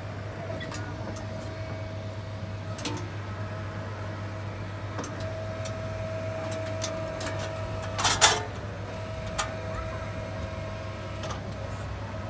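Motor of a small excavator ride humming steadily, with a whine that cuts in and out several times as the controls are worked, light clicks, and a loud knock about eight seconds in.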